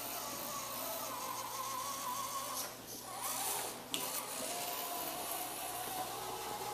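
Small electric drive motors of a student-built robot vehicle whining steadily as it drives, with a sharp click about four seconds in.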